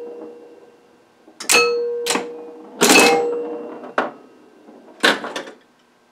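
1976 Williams Aztec electromechanical pinball machine in play: a string of sharp mechanical clacks with scoring chimes ringing out after several of them, about once a second.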